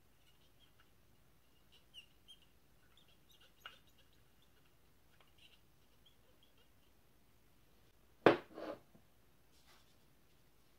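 A sharp knock followed by a brief clatter about eight seconds in, as a hard camera part is set down and handled on the wooden tabletop; before it, faint high chirping and a small click from light handling.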